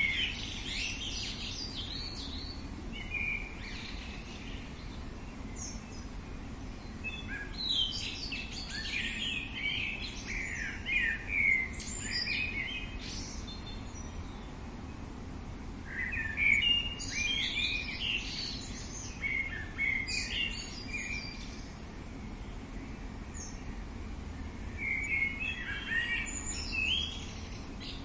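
Birds singing: bouts of quick, varied chirping phrases come and go every few seconds, over a steady low background rumble.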